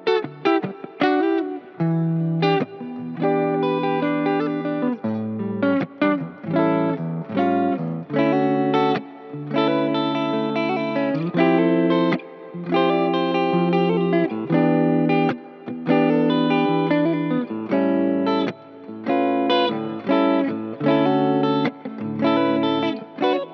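Gibson Les Paul Tribute electric guitar playing a passage of sustained chords and notes, with new notes attacked every second or so and short breaks between phrases, heard as a tone demo.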